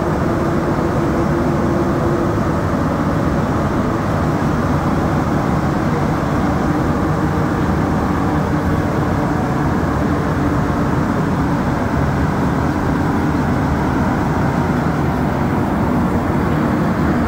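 Montreal Metro AZUR train running between stations on its rubber tyres, heard from inside the car as a steady, even running noise with a low hum.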